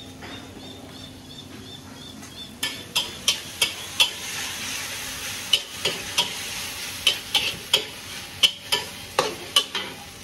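Pad thai frying in a hot pan, sizzling, with a metal spatula striking and scraping the pan every half second or so as the noodles are stirred and tossed. The sizzle starts about two and a half seconds in.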